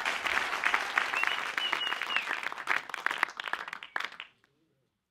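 Audience applauding and cheering, with a few whistles, fading out about four seconds in.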